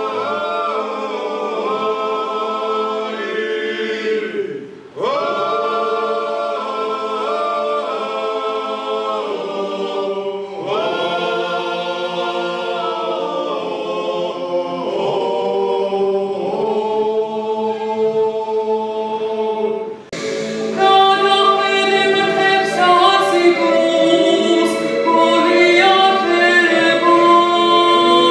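A men's choir singing a cappella, in long phrases with short breaks between them. About twenty seconds in, a woman's solo singing voice takes over.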